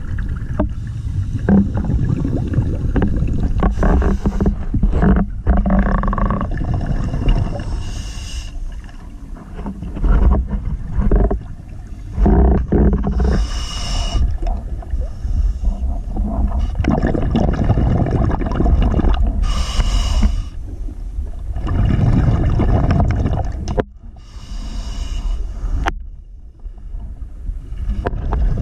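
Scuba diver's breathing heard through an underwater camera: a hiss from the regulator on each breath in, every four to six seconds, between long stretches of low bubbling from exhaled air.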